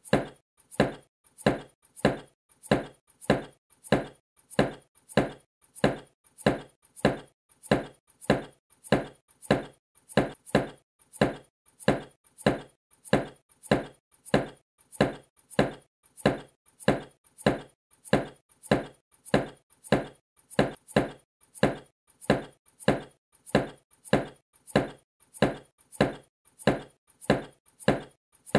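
A knife chopping a carrot on a wooden cutting board, in a steady, even rhythm of sharp chops.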